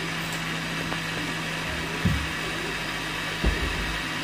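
Electric blender motor running at a steady speed, mixing a thin crepe batter in its jar, with two low thumps about two and three and a half seconds in.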